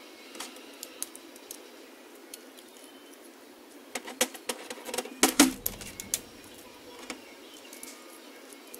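Light clicks and clinks of steel parts handled as a clamp-style knurling tool is fitted onto a lathe quick-change tool holder, with a quick run of sharper metal clicks a little past halfway.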